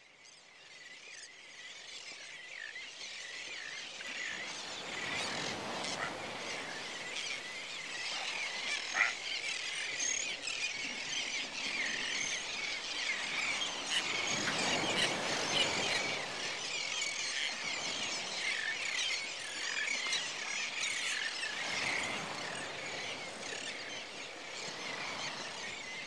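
A large mixed flock of coastal waterbirds calling, many short high calls overlapping continuously, fading in over the first few seconds. A low rushing noise swells underneath at times.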